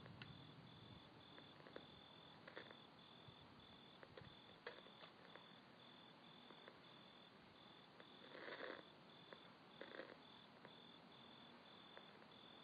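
Near silence: faint steady hiss with a faint high tone pulsing on and off several times a second, and a couple of brief faint sounds in the second half.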